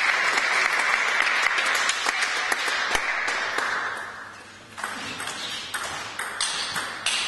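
Applause from spectators fades over about four seconds. Then a table tennis rally starts: the celluloid-type ball clicks sharply off bats and table about twice a second.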